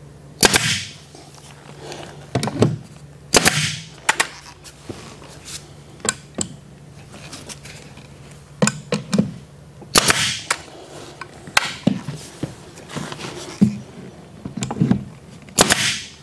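Pneumatic 18-gauge brad nailer firing 1-inch brads into baseboard trim: several sharp shots a few seconds apart, the four loudest each followed by a brief hiss of exhaust air, with lighter clicks between.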